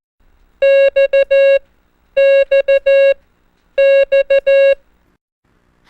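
Morse code tone sending the letter X (dah-di-di-dah: long, short, short, long) three times over, as a clean single-pitch beep with even gaps between repeats.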